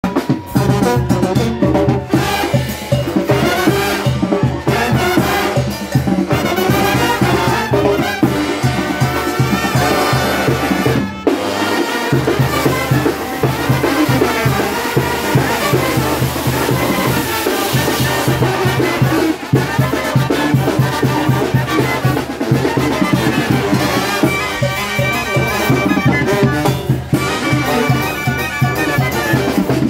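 Live Oaxacan-style brass band (trumpets, trombones, sousaphones and clarinets) playing a tune with a steady pulsing sousaphone bass. The bass drops out briefly about eleven seconds in, and the clarinets carry the melody near the end.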